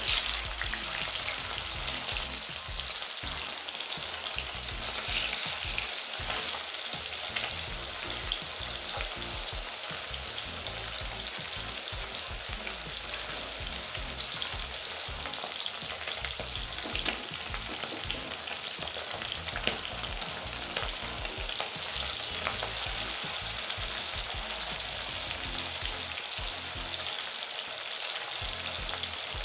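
Small chapila fish frying in hot mustard oil: a loud sizzle as the first fish goes in, settling into a steady hiss with scattered small pops.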